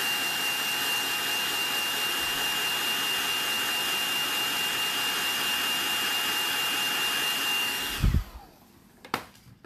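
Hair dryer running at a steady pitch with a thin high whine, blowing on wet ink and watercolor on paper to dry it. It switches off about eight seconds in, followed by a thump and a sharp click.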